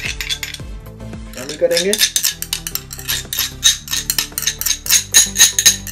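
Metal spoon whisking yogurt in a small glass bowl: rapid, steady clinking of spoon against glass, several strikes a second.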